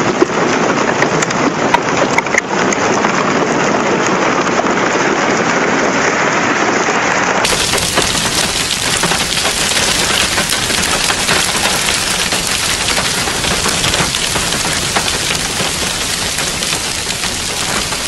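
Hailstorm: hail and heavy rain pelting down in a dense, steady patter with scattered sharp ticks. About seven seconds in it cuts to a second recording of the same kind of downpour that sounds brighter and hissier.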